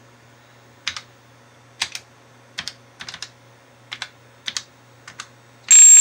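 Keys of a TRS-80 Color Computer 2 keyboard clicking at an uneven pace as a BASIC SOUND command is typed. Near the end a loud, high, buzzy tone of under a second plays through an old speaker. It comes from a makeshift hex-buffer and R2R-ladder DAC and a cheap amplifier standing in for the SC77526 sound chip, which shows the substitute circuit works, though it doesn't sound great.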